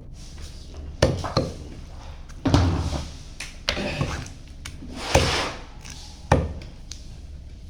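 Chicken being cut up on a wooden chopping board: about six irregular knocks of the blade striking the board, several followed by brief scraping as the pieces are moved.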